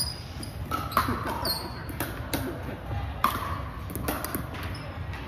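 Pickleball rally: sharp pops of paddles striking the hollow plastic ball and the ball bouncing on the hardwood court, several in quick succession, echoing in the hall.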